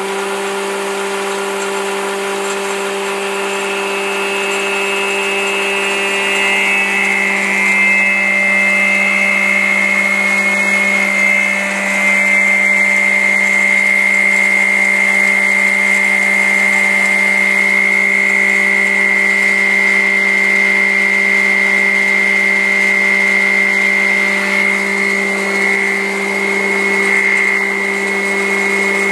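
Woodworking combination machine running at steady speed on its three-phase motor fed by an inverter: a steady hum with a high, steady whine above it, and a few faint ticks about a third of the way in.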